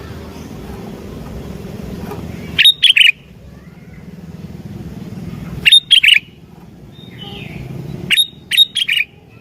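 Sooty-headed bulbul (kutilang) singing: three loud, short phrases of quick high notes, spaced about two and a half to three seconds apart, over a steady low background rumble.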